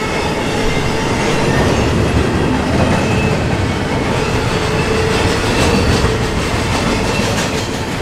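Double-stack intermodal container well cars rolling past at close range: a steady, loud rumble of steel wheels on rail, with clicks over the rail joints that grow denser about five seconds in and a few thin, steady squealing tones from the wheels.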